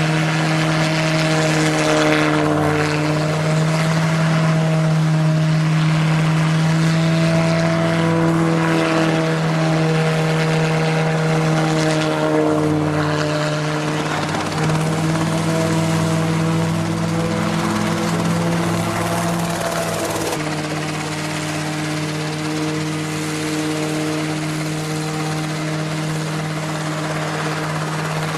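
Homemade single-seat ultralight helicopter hovering: its engine and spinning rotors give a loud, steady hum whose pitch wavers slightly. The tone shifts abruptly about twenty seconds in.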